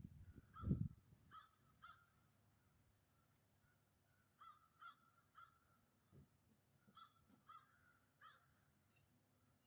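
Faint bird calls: short notes repeated several times, mostly in pairs and threes. A low thump sounds just under a second in.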